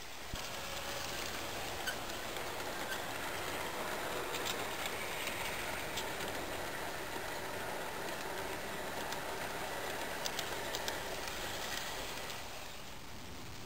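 G-scale model train rolling past on garden railroad track: a steady rolling rumble of wheels on rail with scattered clicks as the wheels cross rail joints. It swells about half a second in and eases off shortly before the end as the cars go by.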